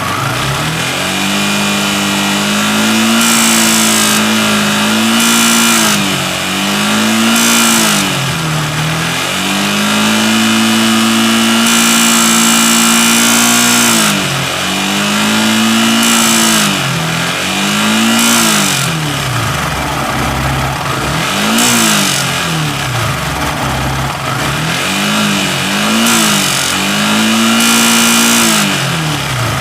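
Yamaha R15 V3's 155 cc single-cylinder engine revved repeatedly from idle, held high for a few seconds at a time, then dropped back. It shows a mechanical noise that comes in at about 7000 RPM when the variable valve actuation engages, which the mechanic puts down to a damaged VVA rocker and valve-clearance fault.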